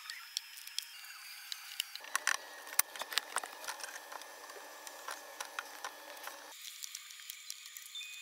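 Faint, irregular small clicks and taps of hands working a plastic wood-glue bottle and boards while glue is applied for a glue-up, over a light hiss.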